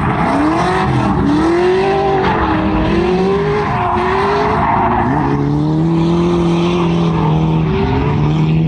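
Drift car's engine revving up and down through a drift, over tires sliding on the track. Its pitch swings repeatedly, then holds fairly steady at high revs for the last few seconds.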